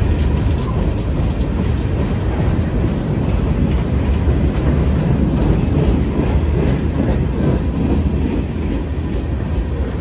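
Freight train of open-top hopper cars rolling past at close range: a steady loud rumble of steel wheels on rail, with clicking from the trucks as the cars go by.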